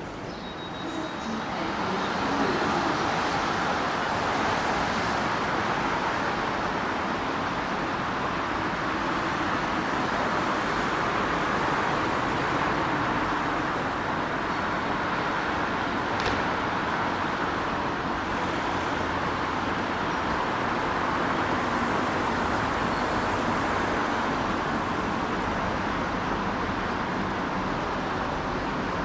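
Train rolling into the station: a steady running noise of wheels on rails that swells about two seconds in and then holds even.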